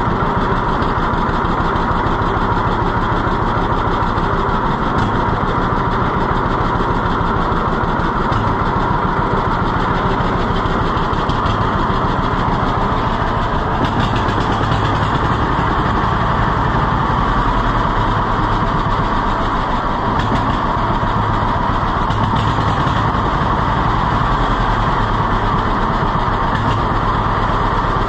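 Old farm tractor engine running on its own shortly after a cold start, with a steady, even firing beat.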